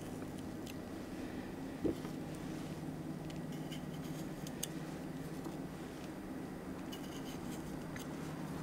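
A kitchen knife trimming a thin raw carrot slice, with faint crisp clicks and scrapes as the blade cuts the petal edges, over a steady low hum. One soft thump comes about two seconds in.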